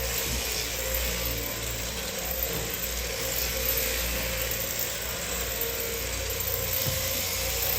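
Electric sheep-shearing handpiece running steadily as a lamb is shorn.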